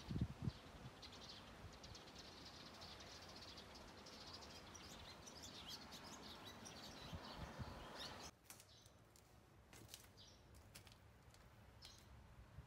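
Faint twittering of barn swallows flying about: many quick high chirps in a rapid, irregular run, which stop about eight seconds in, leaving only a few faint clicks. Two low thumps on the microphone at the very start are the loudest sounds.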